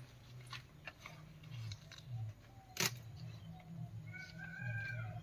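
Taro plants being handled and picked by hand: leaves rustling and light clicks, with one sharp snap about three seconds in. A short high animal call sounds about four seconds in, over a steady low hum.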